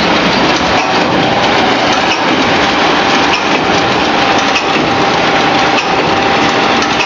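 French-fries processing line machinery running: electric gear motors driving stainless mesh-belt conveyors, a loud, steady mechanical din with small rattling clicks and a thin steady whine that comes in under a second in.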